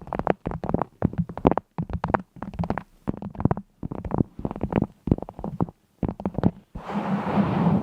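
A rapid, irregular series of sharp taps and clicks, several a second, giving way about seven seconds in to a steady rustling or scraping noise.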